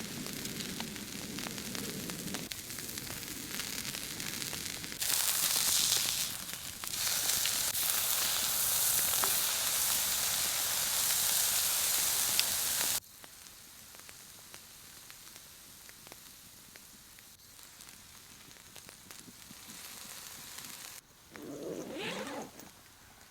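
Steady sizzling and crackling of a campfire cooking, heard in several short cuts: loudest through the middle, then much quieter. A short wavering whine comes near the end.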